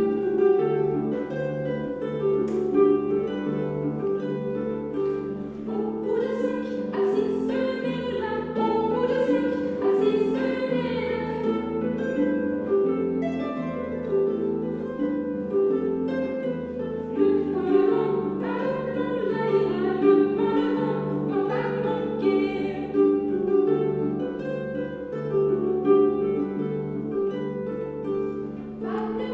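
Celtic harp played solo: a continuous run of plucked notes and chords, each left to ring on.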